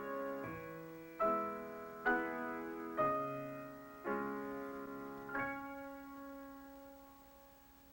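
Solo piano playing slow, quiet chords, about one a second; the last chord, a little past halfway, is held and dies away.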